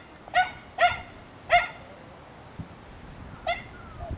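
A small dog barking: four short, high-pitched barks, three in quick succession and then one more about two seconds later.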